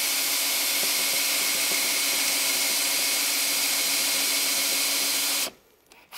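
Cordless drill with a 5/16-inch brad point bit running steadily as it bores a dowel hole into a poplar stool leg. It stops abruptly about five and a half seconds in.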